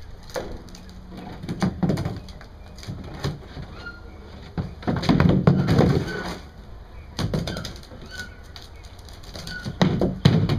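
Knocks and scrapes of a plastic tub being moved about by a monkey on a concrete floor, loudest in a cluster about five seconds in. A few short, high chirps come in between.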